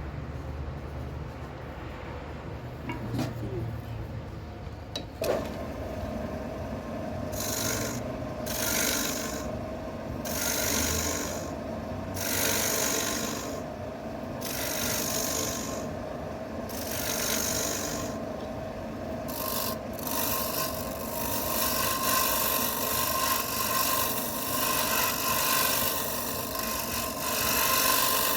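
Wood lathe running, with a tool working a spinning wooden bowl: scraping hiss in regular passes about every second and a half, becoming continuous for the last third.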